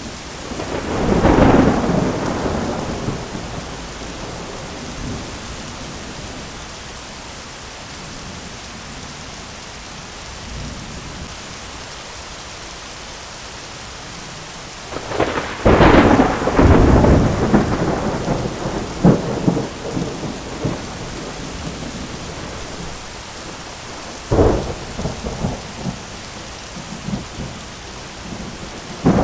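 Thunderstorm: steady rain hiss with rolls of thunder. There is a rumble about a second in, a long crackling peal from about halfway that goes on for several seconds, a sharp clap near the end, and another roll beginning just as it ends.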